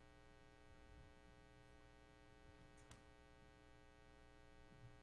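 Near silence: a steady electrical mains hum in the recording, with one faint click about three seconds in.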